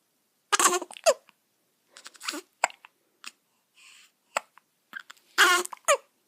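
A string of hiccups: about half a dozen short hics at irregular intervals, some with a brief voiced sound that drops in pitch.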